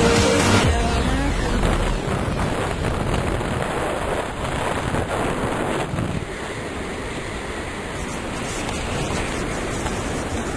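Wind rushing over the camera microphone in flight under a tandem paraglider: a steady, fairly loud rush of noise that eases a little after about six seconds.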